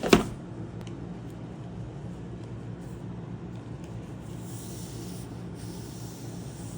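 A sharp thump right at the start, then a steady low hum, with a soft scraping sound for about a second after the four-second mark: the keyboard's box being handled and unpacked.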